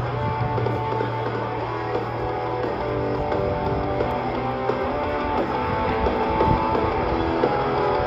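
Rock music with strummed electric guitar, playing steadily.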